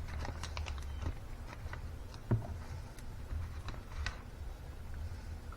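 Kitchen handling sounds while a plastic sandwich freezer bag is filled with mashed potatoes: scattered light clicks and rustles, with one soft thump about two seconds in, over a low steady hum.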